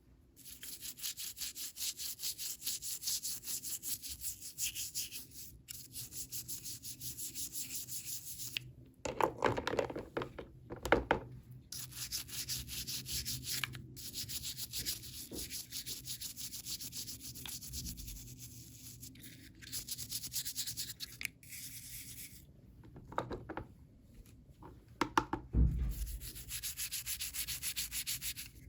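Rapid, fine scratching or rubbing against packaging, in long runs of quick strokes with short pauses between them. A few louder knocks and handling sounds come about nine to eleven seconds in and again near the end.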